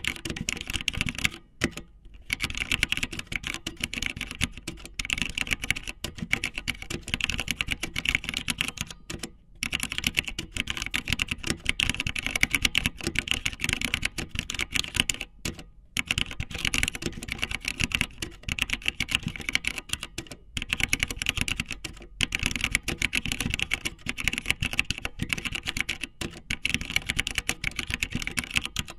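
Fast keyboard typing: dense runs of key clicks, broken by brief pauses every few seconds.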